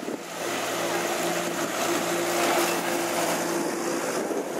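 Vintage farm tractor engine running at a distance, a steady hum that stops near the end, over a rushing noise that swells about halfway through.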